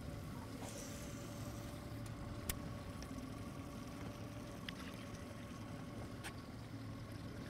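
Boat motor running steadily at low speed: a low hum with a faint steady whine above it, and a few light clicks.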